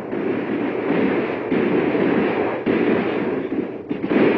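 Battle sound effects: a dense, continuous rumble of cannon and musket fire, with a fresh blast setting in three times.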